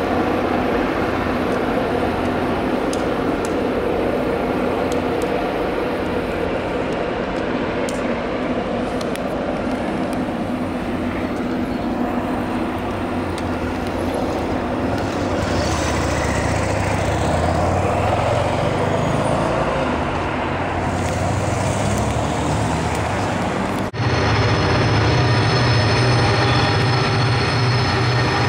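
Maryland Midland freight train running by, with EMD diesel locomotive engines and rolling freight cars making a steady, continuous sound. About 24 seconds in it cuts to a louder stretch with steady high-pitched tones over a low rumble.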